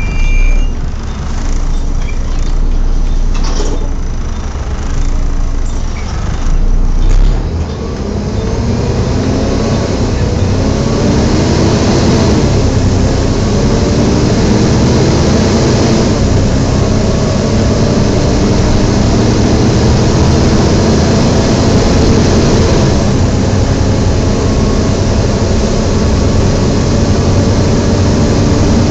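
Volvo B7TL double-decker bus heard from on board: the engine idles, then from about eight seconds in the bus pulls away, its engine note rising and dropping back several times as the automatic gearbox changes up. Over it runs the loud, vacuum-cleaner-like whoosh of the engine cooling fan.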